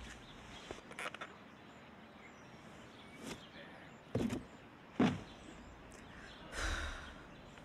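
A few soft thumps and scuffs against a cardboard box: two stronger knocks about four and five seconds in, then a longer scraping rustle near the end, with faint ticks before them.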